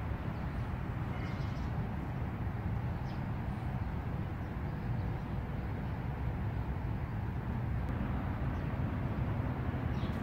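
Outdoor ambience: a steady low rumble, with a few faint, short high chirps now and then.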